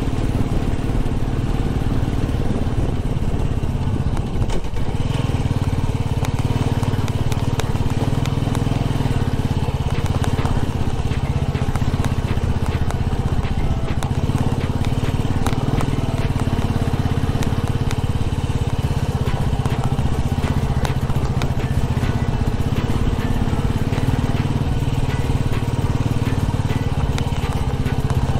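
Royal Enfield Classic's single-cylinder engine running steadily as the motorcycle rides over a rocky dirt track. Loose stones crunch and click under the tyres throughout.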